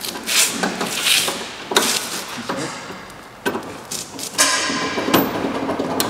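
Hydraulic hose quick-couplers being handled and snapped onto their fittings: a run of sharp metal knocks and clicks, with a longer scraping rattle about four and a half seconds in.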